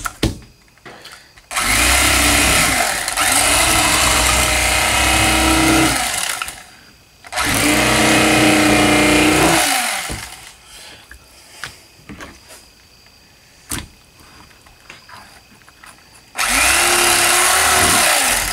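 Electric fillet knife running in three bursts as bass are filleted, the first about four seconds long, the second about three, the last starting near the end. Its motor whine sags and recovers as the blades saw through the fish. Between bursts there are quiet handling sounds and a single sharp click.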